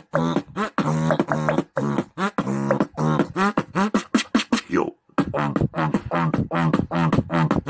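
Beatboxing: one person's voice making a fast rhythmic beat of short pitched vocal sounds, with a brief pause about five seconds in.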